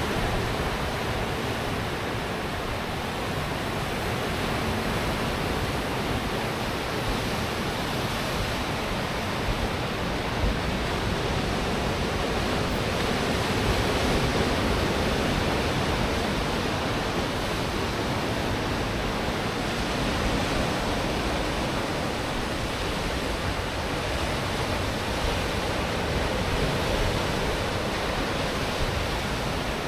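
Pacific Ocean surf: a steady wash of breaking waves that swells gently now and then.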